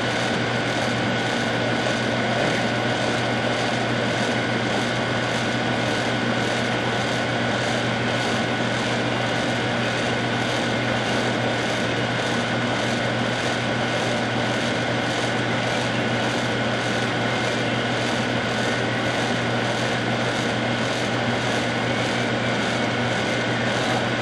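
Steady mechanical hum with a constant high-pitched whine, unchanging throughout.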